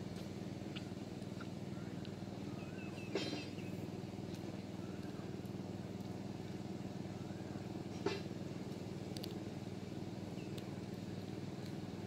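A steady low hum of a running motor, with faint bird chirps and two sharp knocks, about three and eight seconds in.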